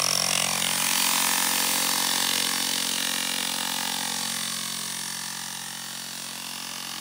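Corded electric rotary hammer running steadily, its bit hammering down into frozen ground, slowly getting quieter and stopping near the end.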